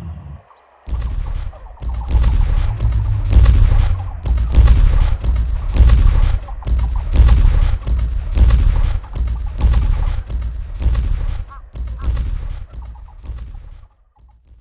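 Giant long-necked dinosaur footsteps, a sound effect of the exhibit's projection show played loud over speakers: a long run of heavy booming thuds, about one and a half a second, dying away near the end.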